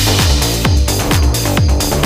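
Electronic dance music playing, with a steady kick drum at about two beats a second.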